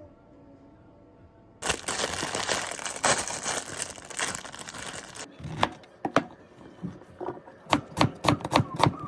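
Household handling sounds: a faint steady hum, then about three and a half seconds of dense rustling noise, then a run of sharp taps and knocks that come quicker, about four a second, near the end.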